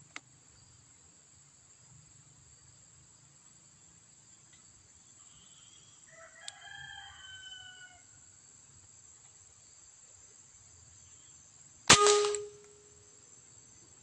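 A single rifle shot near the end: a sharp crack followed by a short ringing tone that dies away within about a second. Midway, a faint animal call with a slightly falling pitch, over a steady high insect drone.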